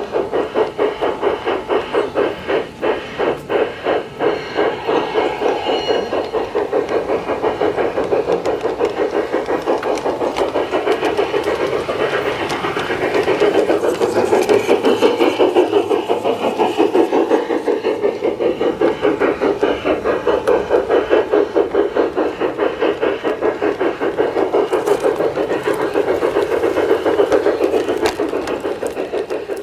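LGB garden-scale model train running along its outdoor track: a steady rattling rumble of wheels and running gear with a fast pulsing beat, a little louder about halfway through.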